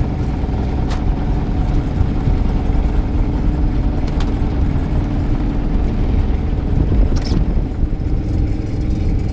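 A fishing boat's engine running steadily, a low rumble with a steady hum. A few short knocks and clatters from crab traps being handled, the clearest about seven seconds in.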